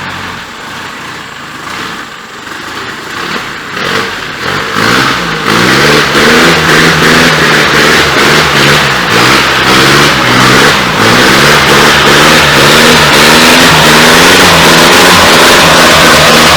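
Off-road car's engine revving hard, its pitch repeatedly rising and falling as the driver works the throttle. It is quieter for the first few seconds, then becomes loud from about five seconds in.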